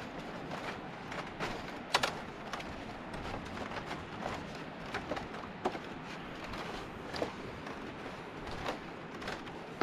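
Footsteps on a bamboo walkway: irregular knocks and creaks of the bamboo, the sharpest about two seconds in, over a steady hiss.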